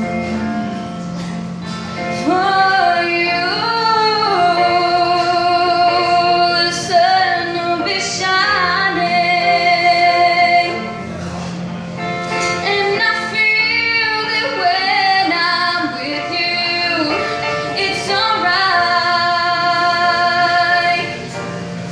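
A woman singing a slow song, holding long notes with vibrato.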